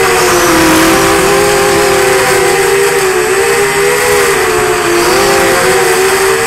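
QAV210 FPV quadcopter's brushless motors and propellers whining steadily in flight, a few close pitches drifting up and down together with throttle, picked up by the Mobius camera mounted on the quad.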